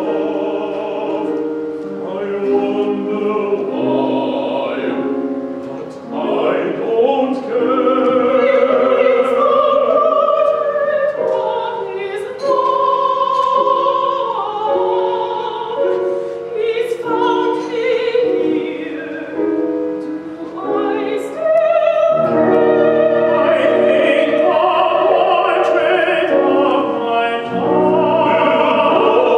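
Live chamber-opera music: an operatic voice singing long held notes over instrumental accompaniment.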